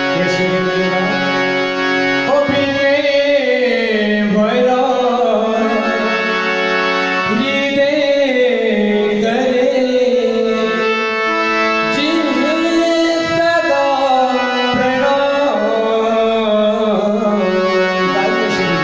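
A man singing a Hindi devotional bhajan with gliding, ornamented melody over the steady held chords of a harmonium; the harmonium plays alone for about the first two seconds before the voice comes in.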